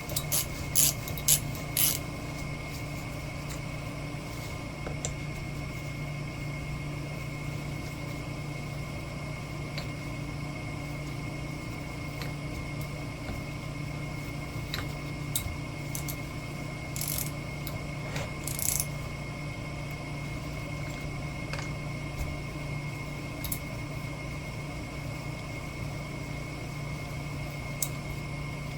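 Workshop hum with a steady high whine, a ratchet wrench clicking through a few quick strokes in the first two seconds, then occasional light tool clinks and knocks as parts are worked on.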